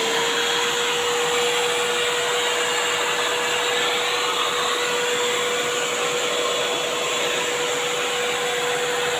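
Idealife portable vacuum cleaner running steadily at full speed: an even motor whine over the rush of air.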